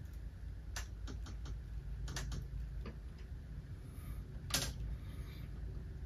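Scattered small clicks and rustles of electrical wires and a plastic light module being handled and joined at a ceiling fan's mounting plate, with one slightly louder click about four and a half seconds in.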